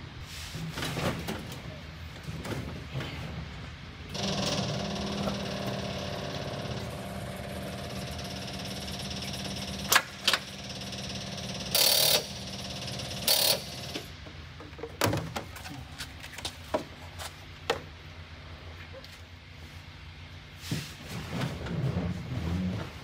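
An Austin Moke's engine being cranked over by its starter for about six seconds, followed by a few sharp clunks and knocks.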